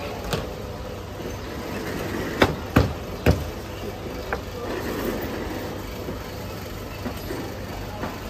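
Steady street background noise, with three sharp knocks close together about two and a half seconds in and a few fainter clicks.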